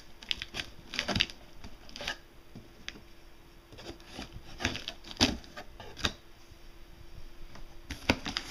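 Cardboard shipping box being opened: a blade scraping and slitting the packing tape and the flaps being handled, heard as a string of irregular scrapes, taps and rustles with a few sharper knocks.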